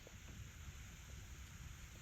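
Faint, steady outdoor background noise: an even hiss over a low rumble, with no distinct events.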